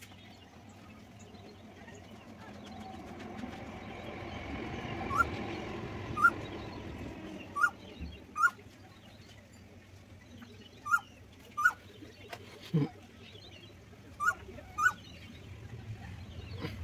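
A bird chirping: short, rising chirps, mostly in pairs, about eight in all, starting about five seconds in.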